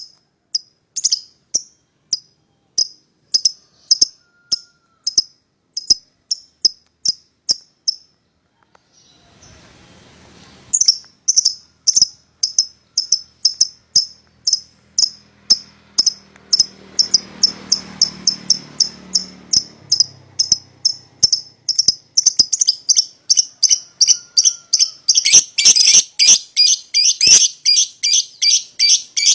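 Young lovebirds chirping: short, sharp, high notes repeated in long series, about two to three a second. The chirping breaks off for a couple of seconds about eight seconds in, leaving only a faint low background noise. It then resumes, coming faster and denser near the end.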